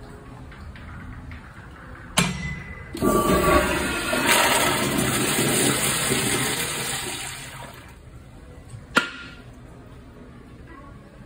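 Wall-hung commercial toilet with a chrome flushometer valve flushing: a sharp start, then a loud rush of water for about five seconds that tapers off. A single sharp click near the end.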